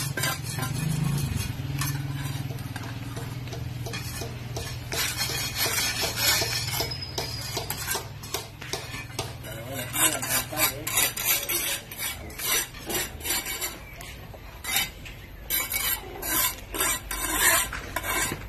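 Steel mason's trowel scraping and tapping wet mortar along the joints of a concrete block wall: a quick, uneven series of scrapes and clicks, growing denser about halfway through.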